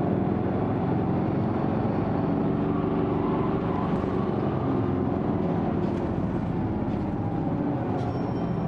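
Hino Blue Ribbon II city bus (PKG-KV234L2) heard from inside, its six-cylinder diesel engine and drivetrain running steadily under way. A few faint clicks come in the second half.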